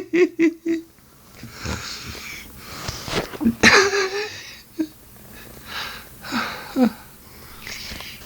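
A man snoring: rasping, wheezy breaths come about every two seconds, and the loudest, with a low droning tone in it, comes about three and a half seconds in.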